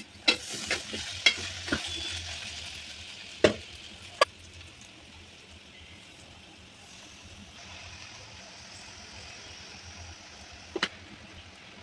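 Potato tomato curry frying and sizzling in a pan while a utensil stirs it, knocking against the pan several times in the first couple of seconds, twice more a few seconds in, and once near the end. The sizzle is strongest at first and then settles to a low, steady hiss.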